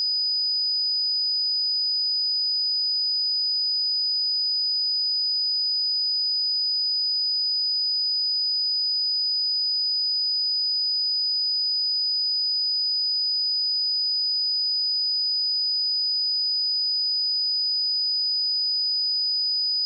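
A pure 4975 Hz sine-wave test tone, one steady high-pitched whistle held at constant level.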